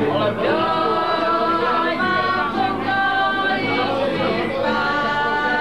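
Several voices singing a song together.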